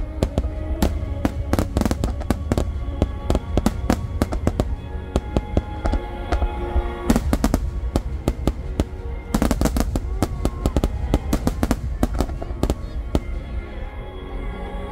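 Dense barrage of aerial firework shells bursting: many sharp bangs in quick succession over a low continuous rumble, with music playing underneath. The bangs come thickest in the middle and thin out near the end.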